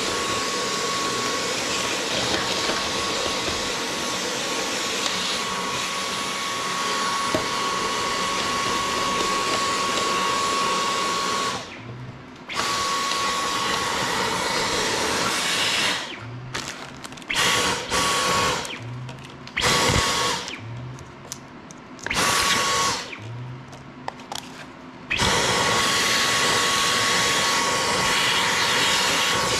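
Cordless stick vacuum running with a steady rush and a high whine. Past the middle it is switched off and on again several times in short bursts, then runs steadily again near the end.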